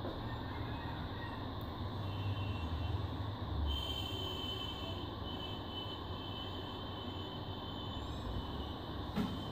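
Steady background rumble and hiss, with a faint high whine for a few seconds in the middle and a single soft click near the end.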